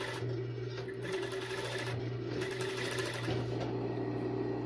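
Kansai industrial sewing machine with a tape binder stitching binding tape onto stretch bikini fabric in three short runs, its motor humming steadily between them.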